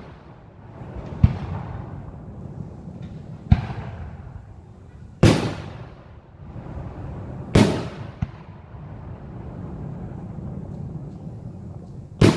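Aerial fireworks shells bursting: about five loud booms a couple of seconds apart, each trailing off in an echo, the last one near the end.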